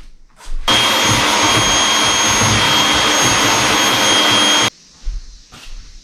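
Vacuum cleaner running steadily with a high whine, starting abruptly about a second in and cutting off suddenly near the end. Short knocks come before and after it.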